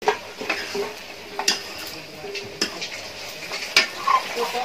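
Aluminium cooking pots clanking as they are handled, with about four sharp metal knocks and some short ringing.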